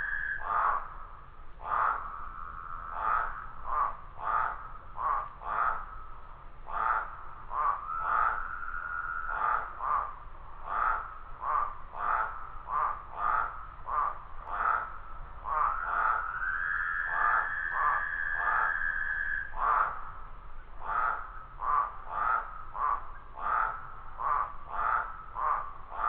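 Frogs croaking in chorus: a long run of harsh, rasping croaks about two a second, broken by a few long drawn-out notes, the longest lasting about three seconds.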